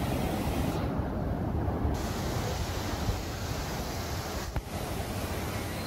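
Floodwater rushing and churning across a submerged street in a steady, unbroken wash of noise.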